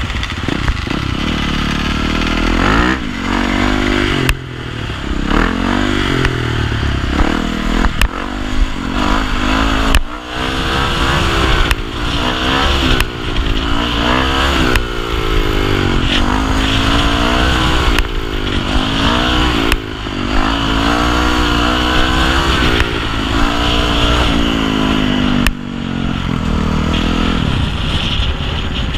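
Dirt bike engine running under way, its pitch climbing and falling again and again as it revs, with short sudden drops in between.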